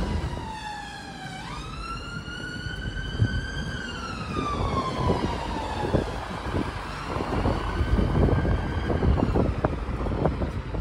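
Emergency vehicle siren wailing: one slow rising and falling tone that climbs sharply about a second and a half in, sinks again by about six seconds and then fades away, over the steady noise of road traffic.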